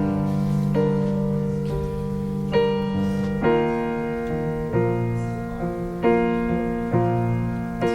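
Piano playing slow, sustained chords, with a new chord struck about once a second.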